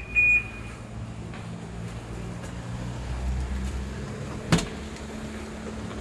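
A short electronic chirp from the alarm system, then the Proton Saga FLX's four-cylinder engine idling steadily after a remote auto-start. A single sharp click about four and a half seconds in as the driver's door is opened.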